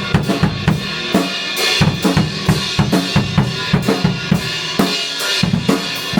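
Rock music driven by a drum kit: a steady, fast beat of kick and snare hits, about three to four a second, with instruments sounding under it.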